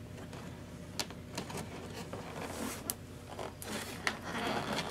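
Cardboard box and paper packaging being handled and opened: scattered light clicks, taps and rustling scrapes, with a longer rustle in the second half.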